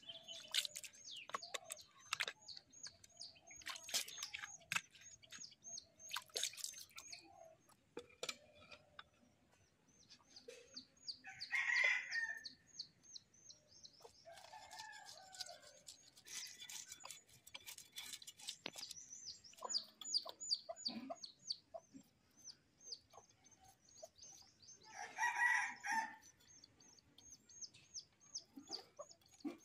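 A rooster crowing twice, about twelve seconds in and again near the end, over a steady run of rapid high-pitched small-bird chirping. Scattered sharp scrapes and clicks come from a knife scaling fish.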